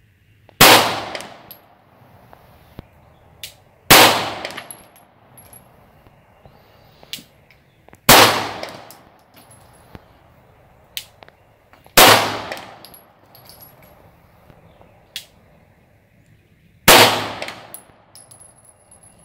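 Five slow, aimed shots from a 9mm Glock 19 pistol, about three to five seconds apart, each trailing off in a short echo. Fainter sharp cracks come in between.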